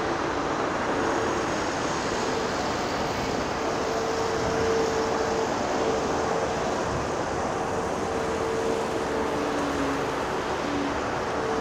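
Steady rushing noise of motorway traffic, with a faint engine tone running over it on and off.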